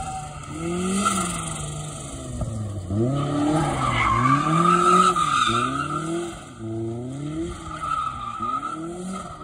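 A competition car's engine revving up and down over and over, driven hard in short bursts, with tyres squealing and skidding.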